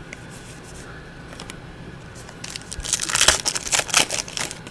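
Foil trading-card pack wrapper crinkling in the hands, starting about halfway in and lasting about two seconds, as a pack is opened.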